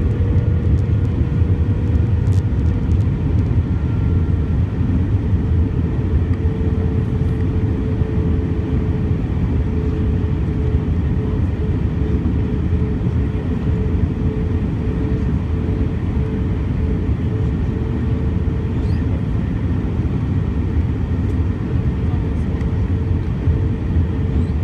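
Steady cabin noise inside an Airbus A320-232 airliner in flight: a loud, even low rumble of the IAE V2500 engines and airflow, with a steady hum running over it.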